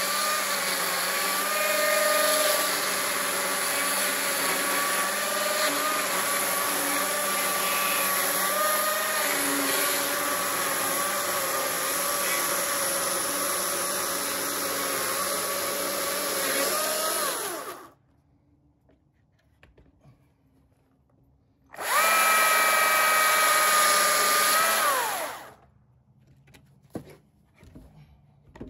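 Battery-powered Stihl chainsaw ripping lengthwise along a log, a steady whine that wavers slightly under load, then winds down and stops about 18 seconds in. After a pause of a few seconds it runs again briefly, about three seconds, and winds down, followed by a few light knocks of wood being handled.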